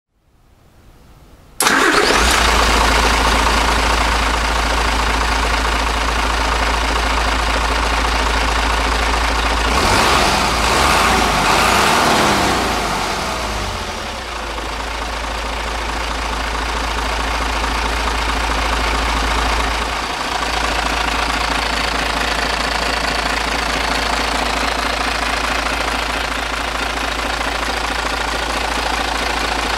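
Hino J08E turbocharged straight-six diesel engine idling steadily. About ten seconds in it is revved briefly, rising and falling back to idle over about three seconds.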